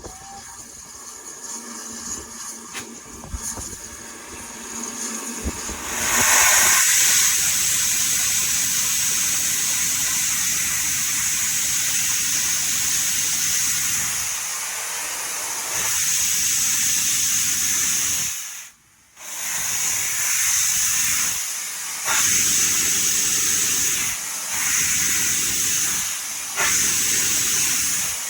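BR Standard Class 4MT 4-6-0 steam locomotive 75069 hissing loudly and steadily as it blows off steam. The hiss starts about six seconds in after a quieter stretch and is broken by a short drop-out partway through and a few brief dips near the end.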